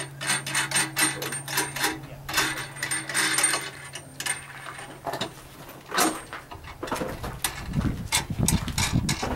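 A run of quick mechanical clicks, knocks and rattles, with a steady low hum under the first two seconds and heavier low rumbling from about seven seconds in.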